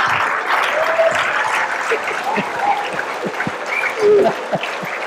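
Auditorium audience applauding after a joke, the clapping dying away, with scattered laughter and voices over it.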